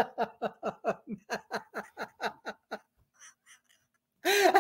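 A woman laughing hard in a quick run of 'ha-ha-ha' pulses, about four or five a second, that trails off about three seconds in. After a short pause another, louder laugh starts near the end.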